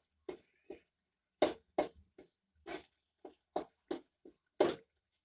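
Soft boiled tomatoes being mashed into the masala in a pan: a run of short, irregular wet strokes, two or three a second.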